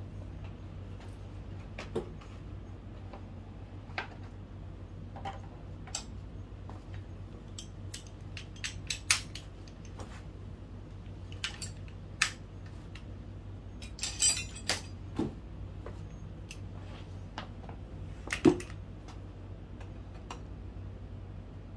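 Scattered metallic clicks and clinks of hand tools and small engine parts being handled during the teardown of a 50cc scooter engine, with a short rattle about fourteen seconds in and a few louder clinks, over a low steady hum.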